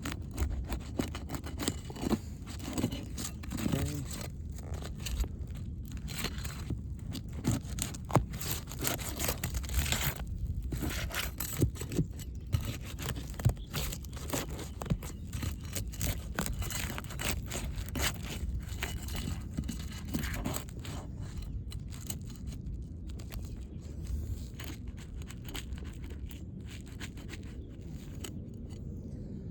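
Brittle three-tab asphalt shingles being pried up under their sealed tabs: irregular scraping, crackling and tearing as the worn shingles break their seal and tear.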